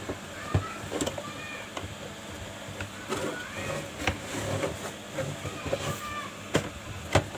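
A homemade PVC cassette-player case being turned over and moved on a wooden tabletop: a few sharp knocks and light bumps as it is handled.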